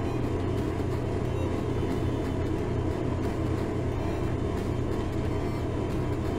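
Steady low hum and rumble, unchanging throughout, with a constant drone in the low range.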